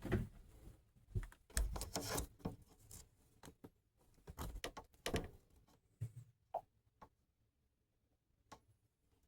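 Irregular knocks, clicks and rustling close by, in quick clusters for the first six seconds, then only a few scattered clicks.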